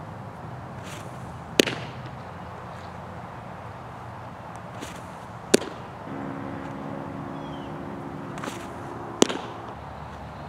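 Pitched baseballs smacking into a catcher's mitt: three sharp pops about four seconds apart.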